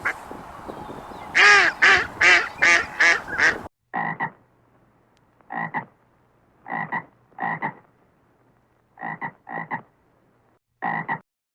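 Animal calls: a run of loud, quickly repeated pitched calls over background noise, then an abrupt cut to short single and paired calls spaced about a second or more apart against a quiet background.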